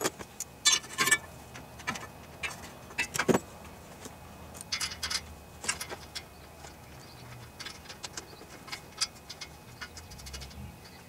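Small metal clicks and clinks as a carburetor and its mounting bolt are handled and fitted to the intake elbow of a Tecumseh small engine. The clicks come at irregular moments, with the loudest about a second in and again just after three seconds in.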